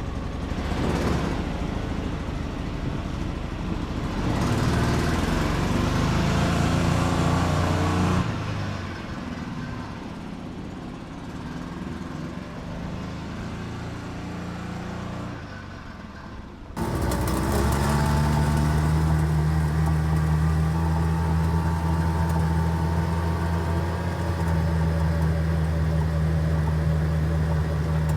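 2005 Polaris Ranger XP 700's twin-cylinder engine running smoothly while driven: it pulls louder about four seconds in, eases off around eight seconds, then comes in suddenly louder and holds steady from about seventeen seconds on.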